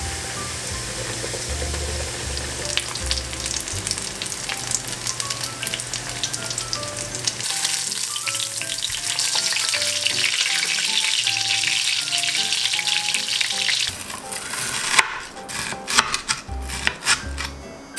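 Breaded pork cutlet deep-frying in oil in a cast-iron skillet: a steady crackling sizzle that grows louder about halfway through. From about fifteen seconds in, a knife crunches through the fried crust on a cutting board in a series of sharp cuts.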